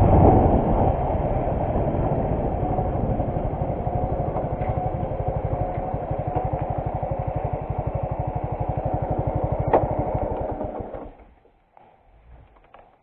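Suzuki Gixxer 155 single-cylinder motorcycle engine running and settling into an even, pulsing idle, then dying away about eleven seconds in as it is switched off.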